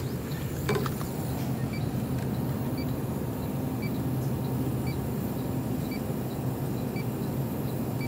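Steady low hum from supermarket refrigerated display cases. Over it, a handheld refrigerant leak detector gives a short, faint high beep about once a second: the idle rate, with no refrigerant found (the display reads 0 ppm).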